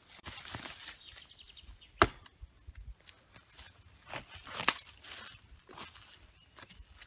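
Two sharp knocks of a knife blade striking wood, the louder about two seconds in and the second just under five seconds in, with light crunching of footsteps in dry leaves between them.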